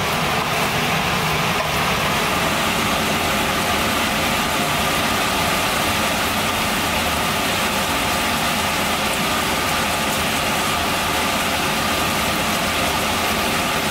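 Steady, loud whirring hum of a fan or motor running without change.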